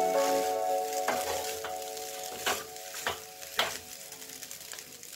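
Fried rice sizzling in a hot kadai as it is stirred and tossed with a wooden spatula and a steel spoon. Several sharp clicks of the utensils knock against the pan.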